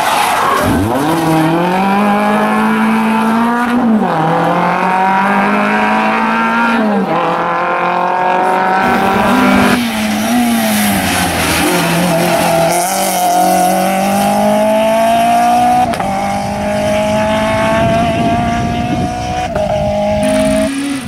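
Rally cars at full throttle on a stage, the engines climbing in pitch and dropping back through gear changes, one pass after another with abrupt changes between them. Some tyre scrub is mixed in.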